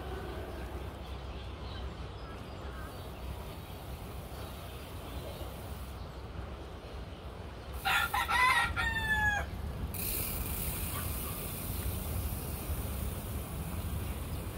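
A rooster crowing once, about eight seconds in: a call of under two seconds that drops in pitch at the end, over a steady low background rumble.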